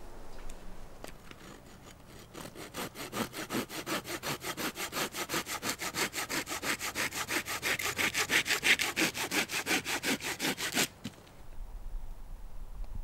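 Hand saw cutting through a branch in quick, even strokes, starting about two seconds in and stopping suddenly near the end.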